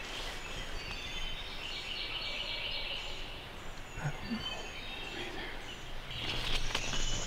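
Turkey calls in two spells, about a second and a half in and again near the end, over steady outdoor background noise.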